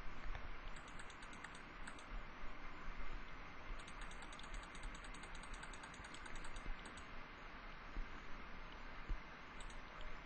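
Faint runs of quick, evenly spaced clicks from a computer keyboard, coming in several spells of a second or two each, over a low steady hiss.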